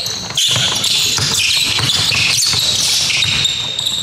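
Basketball game on a hardwood gym floor: a ball dribbled in repeated low thuds, mixed with many short, high-pitched sneaker squeaks, echoing in a large gym.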